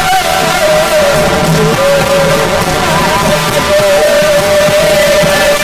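Kirtan devotional music: a long held melody line that slides slowly between notes over sustained accompaniment.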